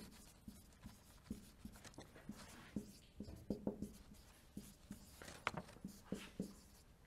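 Marker pen writing on a whiteboard: an irregular run of short, faint strokes and taps as words are written, with one sharper squeak about five and a half seconds in.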